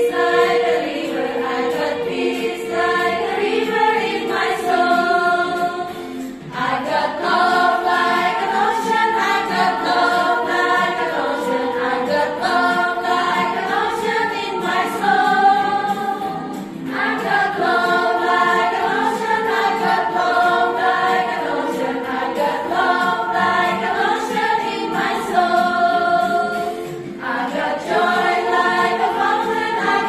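A children's song: voices singing a melody over music, in phrases with a short break about every ten seconds.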